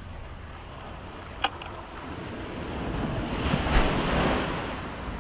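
Surf on a rocky shoreline: a wave swells up a couple of seconds in, breaks and washes over the rocks, loudest near the end, then falls back. A single short, sharp click comes about a second and a half in, with wind buffeting the microphone throughout.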